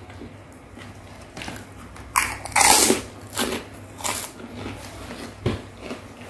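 Close-miked eating: a loud crunching bite a little over two seconds in, then a few shorter crunches and chewing.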